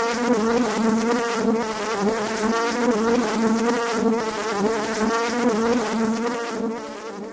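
An insect buzzing in flight, a continuous hum whose pitch wavers slightly without a break.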